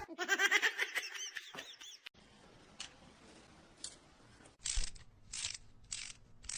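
A quick run of short, high squeaky calls from a small animal, then a pause and a few brief rustling or scratching noises.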